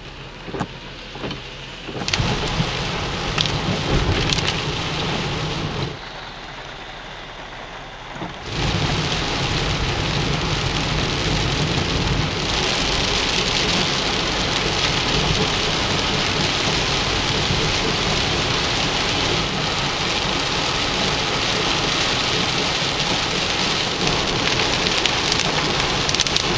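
Heavy rain falling and hitting the ground and nearby surfaces, a dense steady hiss. It drops to a quieter hush twice in the first eight seconds, then grows louder and hissier about twelve seconds in as the downpour gets heavier.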